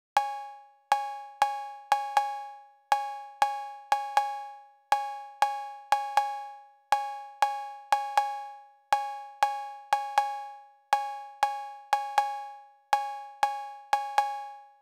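Cowbell sample playing a repeating syncopated pattern of about four strikes every two seconds. Each strike rings on two clashing pitches and decays quickly. It is heard through the Klanghelm DC1A compressor plug-in with compression switched in, on a sound with little low-frequency energy.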